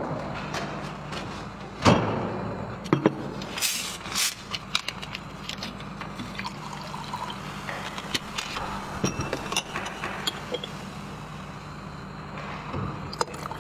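Cola in a plastic bottle being handled, opened and poured: a knock about two seconds in, a short fizzing hiss near four seconds, then small clicks and knocks with liquid trickling into a mug, over a low steady hum.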